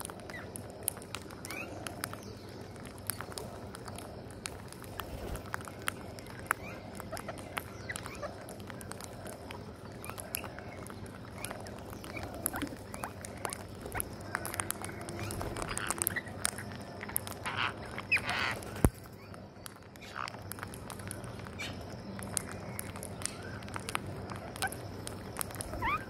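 Rose-ringed parakeets feeding on rice grains on a concrete ledge: a steady scatter of small sharp clicks from beaks pecking, with occasional short calls.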